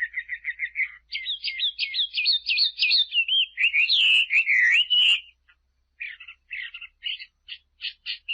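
A songbird singing a varied song: a quick trill of repeated notes, then a run of higher down-slurred notes and warbled phrases. After a short pause near the middle it gives a series of short, evenly spaced chirps.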